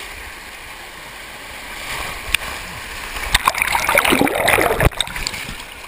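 Fast-moving water on a tube rapids ride rushing and splashing around the camera. About three seconds in it turns into a loud churning and bubbling splash as the camera dips into the water, and it breaks off suddenly about a second and a half later.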